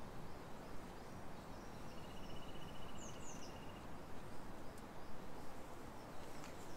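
Outdoor ambience of a steady low noise with small birds chirping now and then, and a fast, even trill about two seconds in that lasts nearly two seconds.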